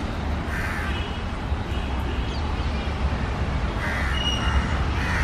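Crows cawing a few times, once about a second in and three times close together near the end, over a steady low rumble.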